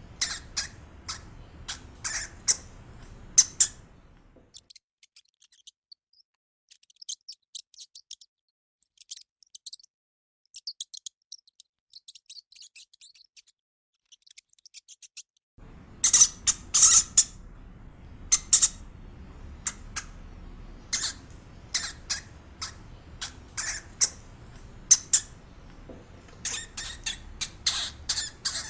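Hamster squeaking: short, sharp, high-pitched squeaks in quick irregular runs. From about four seconds in until about fifteen seconds in, the squeaks are much fainter with no background noise, then louder squeaks over a low background noise take over again.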